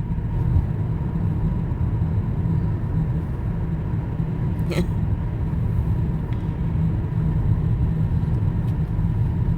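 Steady low rumble of a car driving, heard inside the car. A brief sharp squeak-like sound about five seconds in.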